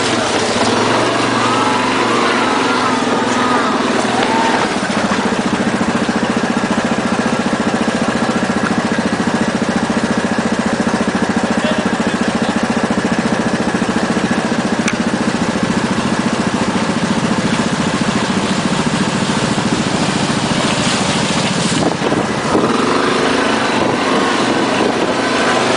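ATV engine running steadily at low revs, close to the microphone.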